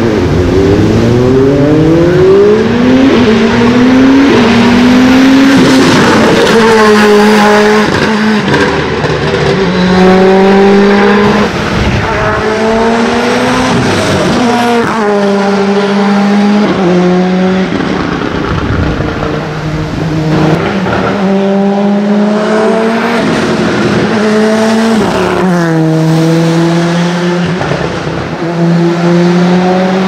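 Ford Escort Cosworth hillclimb car with a stroked, roughly 600 hp Cosworth YB turbo four-cylinder, launching from the start and accelerating hard up through the gears. Its engine note climbs steeply in each gear and drops at every upshift, over and over.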